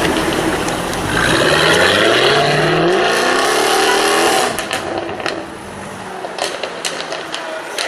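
Jaguar F-Type R's supercharged 5.0-litre V8 accelerating hard, its note climbing steadily in pitch, then lifting off about four seconds in, followed by a scatter of sharp exhaust pops and cracks on the overrun.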